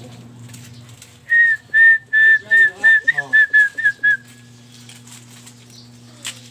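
A run of about ten short, high whistled notes at one pitch, coming faster toward the end and dropping slightly in pitch on the last few, over a steady low electrical hum.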